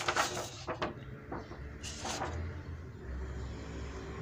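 Large sheets of white paper rustling and crackling as they are handled and laid flat, in a few short scrapes during the first two seconds. A steady low rumble comes in about halfway through.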